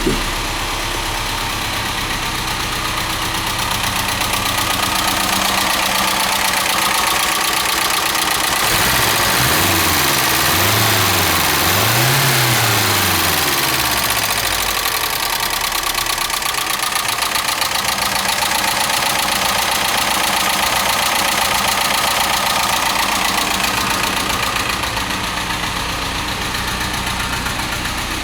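Carbureted engine of a vertical-headlight Mercedes-Benz idling steadily, blipped up and back down three times in quick succession a third of the way in, then settling back to idle. It is running smoothly after a carburetor clean-out and the correction of an assembly mistake.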